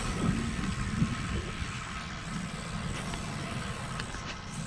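Steady low rumble of wind on the microphone and road noise from a road bike being ridden.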